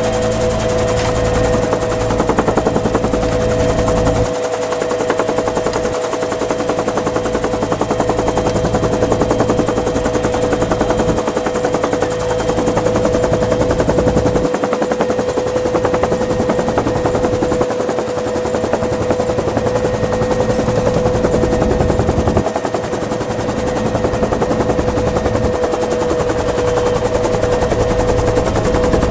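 Dillon Aero M134 7.62x51mm minigun firing long bursts from the door of a flying UH-1 Huey, a rapid buzz of about 50 rounds a second. It breaks off briefly a few times. The helicopter's engine and rotor noise runs underneath.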